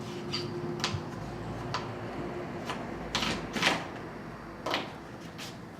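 Scattered light clicks and ticks of small metal parts being handled as a mountain bike's shifter and brake lever are loosened and swapped around on the handlebar.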